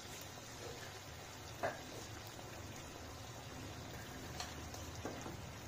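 A pan of onion, tomato and cashew gravy thinned with water, heating toward a boil: faint steady bubbling with a few small pops.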